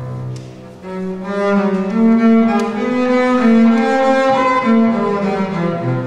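Solo double bass played with the bow: a low held note that fades under a second in, then a slow melody of sustained notes moving higher.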